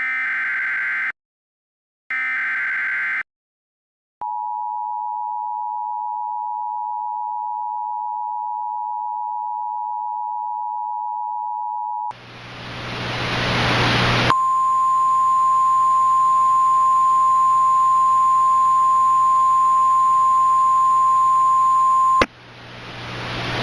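Mock Emergency Alert System sequence: the last two of three SAME digital header bursts, each a harsh warbling data chirp about a second long. About a second later comes the EAS two-tone attention signal, held steady for about eight seconds. Radio static then swells in and a single steady 1050 Hz NOAA Weather Radio warning tone sounds over it for about eight seconds before cutting off, leaving the static. Together these signal that an emergency warning broadcast follows.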